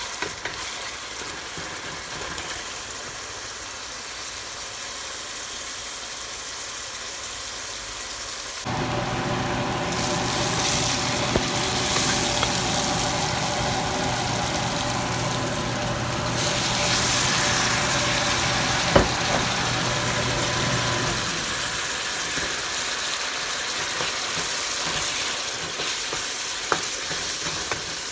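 Food frying and sizzling in a pan, a steady hiss with a few knocks. A steady motor-like hum joins about a third of the way in and stops about three-quarters of the way through.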